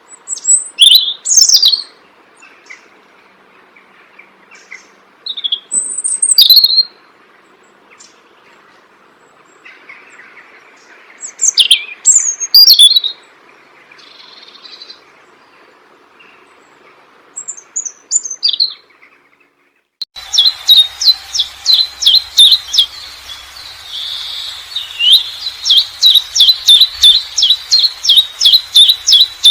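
Songbirds chirping: short bursts of quick, high whistled notes every few seconds. After an abrupt change about two thirds of the way through, a bird repeats a short high chirp rapidly and evenly, three or four times a second.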